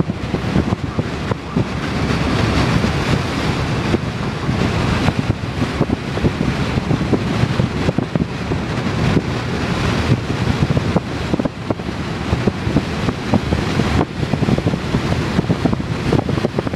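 Steady rushing wind and road noise from a moving vehicle, with frequent irregular buffeting on the microphone.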